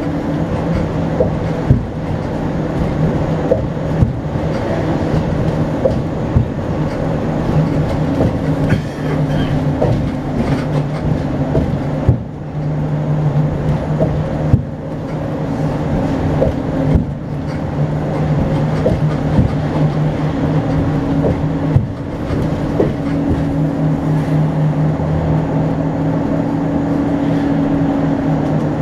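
A city bus running across a bridge, heard from inside the cabin: a steady engine and road drone with a continuous low hum, broken by scattered sharp knocks and rattles.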